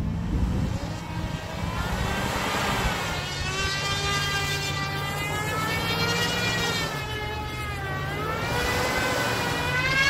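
Tow truck stuck in deep snow, its engine revving as the wheels spin, with a high whine that rises and falls with the revs, dropping about seven seconds in and climbing again near the end.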